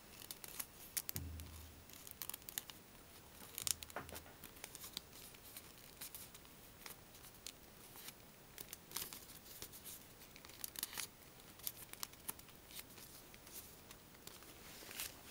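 Folded paper rustling and crinkling in the hands, with scattered faint ticks and brushes as origami star units are tucked together and pressed flat. A couple of soft low bumps, about a second in and near four seconds.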